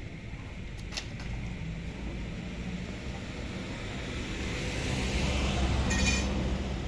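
An engine running at low speed: a steady low rumble that grows a little louder in the last couple of seconds.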